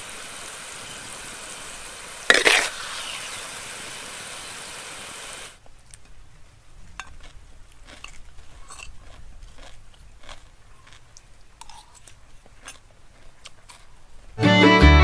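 A steady sizzle of frying, with a sudden louder hiss about two seconds in. From about five seconds in, crunching and chewing of crisp fried fish as it is eaten, a scatter of small crackles and clicks. Music starts near the end.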